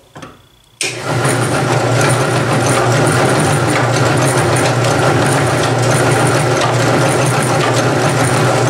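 Bench drill press starting about a second in and running steadily, spinning a Vortex Ball Roller with a pure lead round ball being rolled in it: a steady hum over a broad hiss.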